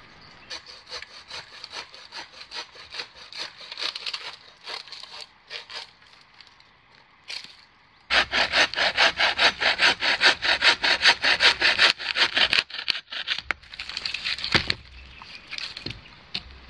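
Hand saw cutting through wood in steady back-and-forth strokes. It starts quieter at about three strokes a second, then after a short pause comes a louder, faster spell of about four to five strokes a second, with a few last strokes near the end.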